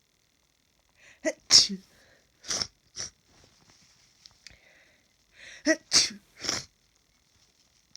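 A person sneezing in a hay-fever sneezing fit: two quick runs of sneezes about four seconds apart, each opening with a short catch of breath before the loudest sneeze.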